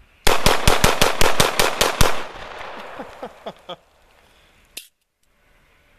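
Canik TP9SF 9mm pistol fired in rapid succession, about eleven shots in under two seconds at roughly six a second. The shots echo and fade out over the following second or two.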